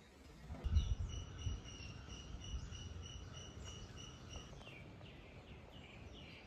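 Quiet outdoor ambience with an even series of high chirps, about three a second, then a few short falling chirps near the end. A few soft low thumps sound about a second in.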